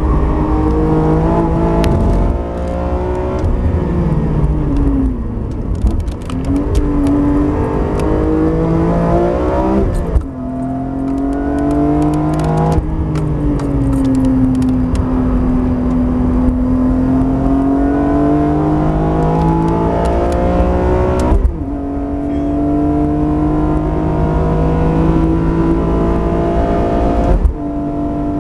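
BMW E46 M3 CSL's 3.2-litre straight-six at full track pace, heard from inside the cabin. Its note falls and rises through braking and corners, then climbs under hard acceleration, with two upshifts near the end, each a sudden drop in pitch.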